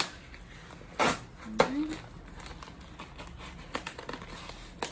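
Cardboard mailer box being picked open by hand: scratching and crinkling of the cardboard and its tape, with one loud burst of box noise about a second in and scattered small clicks and crackles near the end.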